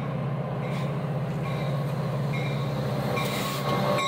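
Metra diesel locomotive pulling in alongside the platform, its engine drone steady and pulsing, growing louder as it passes close, with a brief hiss about three seconds in.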